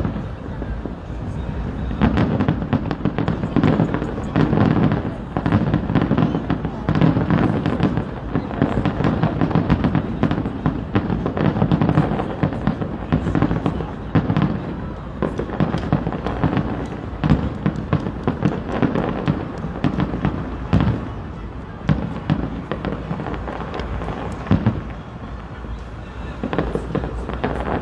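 Aerial fireworks display: a rapid, almost unbroken barrage of booms and crackling, many reports overlapping, easing off slightly a few seconds before the end.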